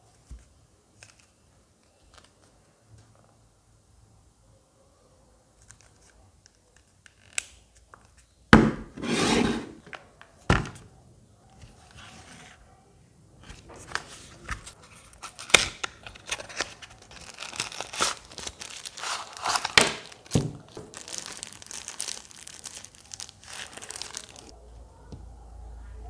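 A small cardboard product box being opened and unpacked by hand: a few light handling clicks, then loud tearing and scraping as the box is opened. After that comes a long run of crinkling and rustling as the packaging and the product are pulled out.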